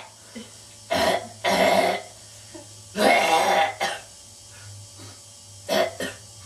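A person's voice making rough coughing, throat-clearing noises in short bursts. There are about five, the longest lasting under a second at around the middle, and two quick ones near the end.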